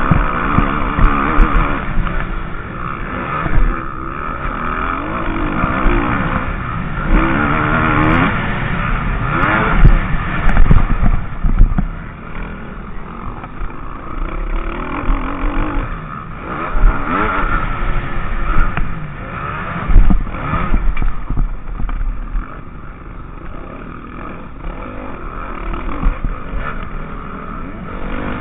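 Motocross bike engine heard from on board, revving up and down again and again as the rider accelerates and shifts along the track.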